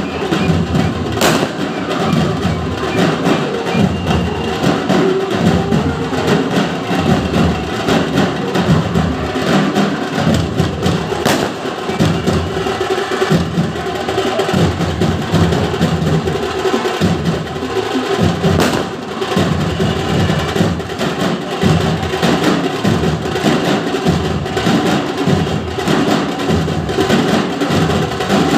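Nashik dhol ensemble drumming: big barrel drums and sharp stick strokes beaten together in a fast, dense, continuous rhythm at a steady loud level.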